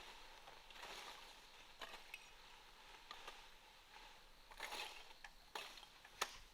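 Near silence with a few faint, scattered clicks and scrapes, the sharpest near the end.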